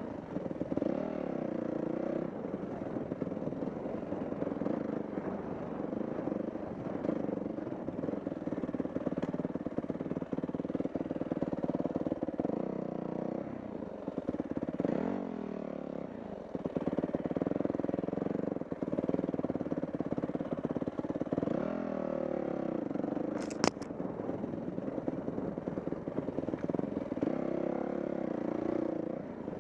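Dirt bike engine running while ridden, its revs rising and falling repeatedly with the throttle. A single sharp click comes about three-quarters of the way through.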